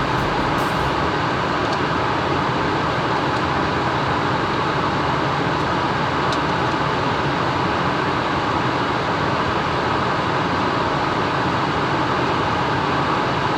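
Steady rushing cockpit noise of a Cessna Citation M2 jet in high-altitude cruise, airflow and engine noise holding at one even level.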